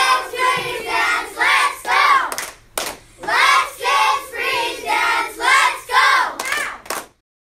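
A group of children chanting or singing together in short, rhythmic phrases, with a few sharp claps or hits in the middle and near the end.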